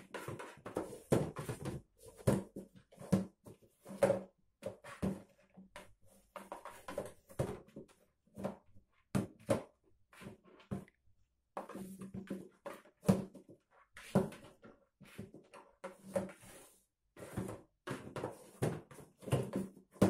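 Small cardboard box being batted, nosed and pushed about on a laminate floor by a cat: an irregular string of short knocks and scuffs, several a second, with brief pauses between bursts.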